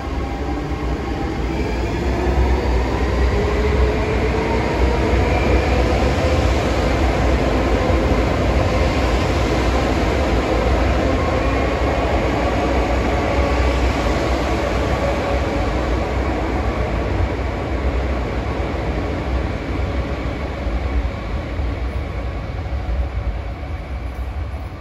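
Transperth C-series Alstom electric train pulling away. Its traction motors whine, rising in pitch as it accelerates, over a steady rumble of wheels on rail, and the sound fades as it draws off into the distance.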